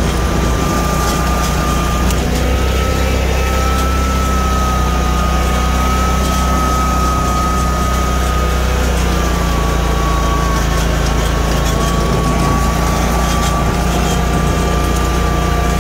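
Dixie Chopper Classic 3372 zero-turn mower's 33-horsepower Generac engine running steadily as the mower drives across the lawn. A deep rumble lies under a steady high whine that drifts slightly in pitch.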